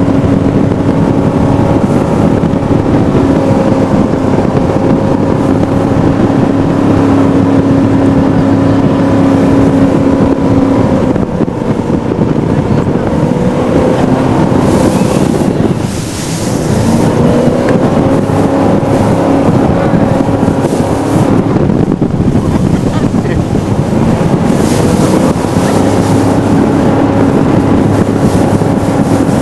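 Jet boat running at speed across open water: a steady engine drone mixed with rushing water and wind on the microphone. About halfway through, the engine note briefly drops and eases off, then builds back up.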